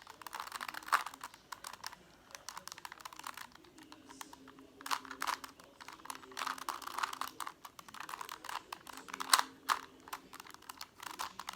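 A plastic Rubik's cube being twisted by hand as it is solved: quick, irregular runs of clicks and clacks from the turning layers, with short pauses between runs.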